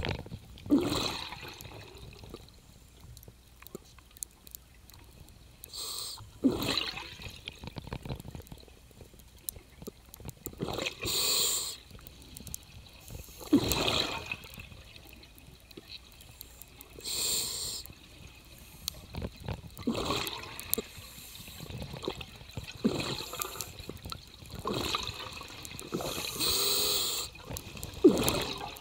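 A scuba diver's regulator breathing underwater, played at double speed: bursts of exhaled bubbles and breaths come every few seconds, with quieter gaps between them.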